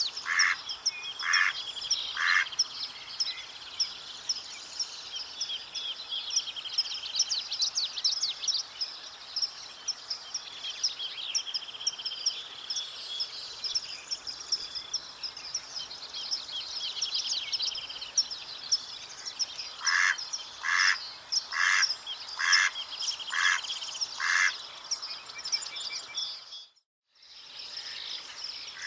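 Mallard duck quacking in two runs of evenly spaced quacks, about two a second: one in the first couple of seconds and one about twenty seconds in. Under them runs a busy chorus of high chirps and trills. The sound cuts out for under a second near the end.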